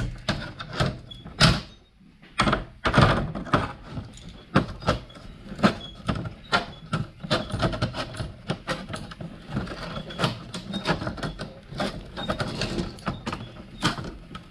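Tin snips and a hand tool on the stainless flipper piece of a 1955–57 Chevy as the old felt strip is cut and pulled off: an irregular run of sharp metallic clicks and snaps, the loudest about a second and a half and three seconds in.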